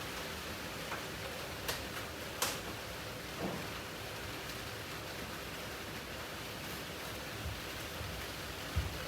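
Steady hiss of rain, with a few short clicks and soft low thumps scattered through.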